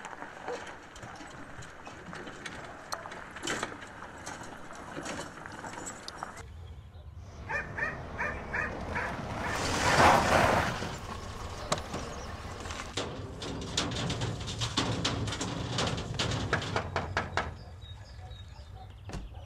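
A car driving along a gravel road. The engine rumble and the tyres on the gravel build to a peak about ten seconds in, as it passes, and then fade. Before it, a quiet night background with scattered clicks and knocks, and a dog barking at times.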